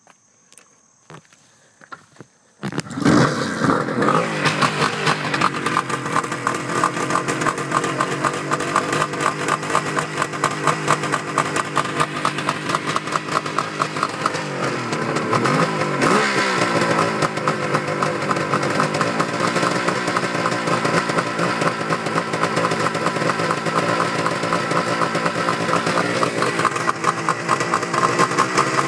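A 1973 Suzuki two-stroke triple motorcycle engine starting cold on choke after sitting for over a week: it catches suddenly about two and a half seconds in and settles into a fast, even two-stroke idle. The revs dip and pick up again about halfway through and shift once more near the end.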